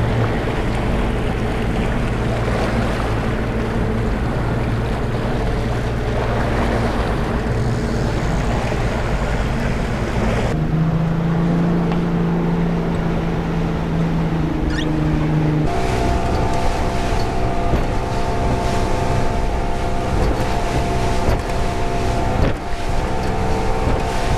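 Outboard motor running at speed on a center-console boat, with wind and water rushing past the hull. The steady engine hum jumps to a different pitch twice, about ten and sixteen seconds in.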